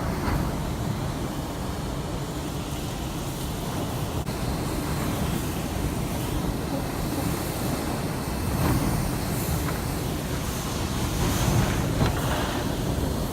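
Category 4 hurricane wind blowing hard and steadily, with stronger gusts swelling about two-thirds of the way in and again near the end, buffeting the microphone.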